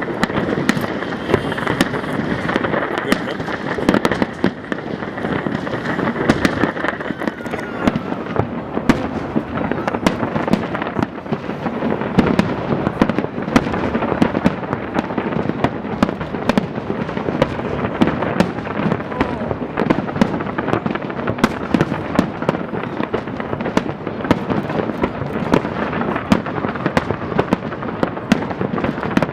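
Fireworks display going off continuously: a dense, unbroken stream of cracks and bangs.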